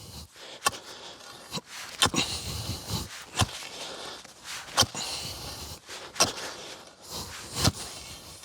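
Rustling handling noise from the installation gear being moved about, with a sharp knock or click every second or so at irregular intervals.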